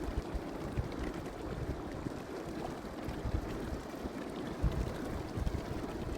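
Hot-spring water running and trickling, with wind rumbling on the microphone in uneven gusts.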